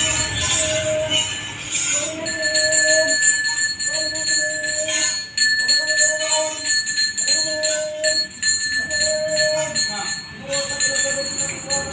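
Nema (bhuta kola) ritual music with jingling bells and percussion strikes. Over these, a held note repeats about every second and a half.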